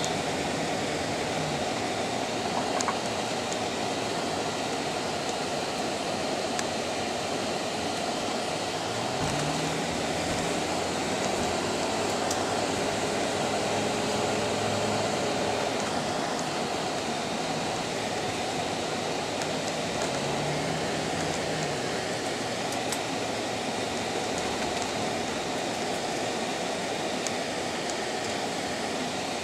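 Steady road and engine noise heard inside a moving car, with a low hum that rises and falls twice.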